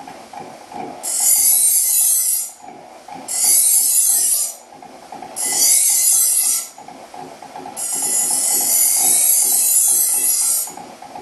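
Bench grinder running with a steady motor whine while a knife blade is drawn across its spinning pressed-paper sharpening wheel in four passes, each a loud high hiss, the last one the longest.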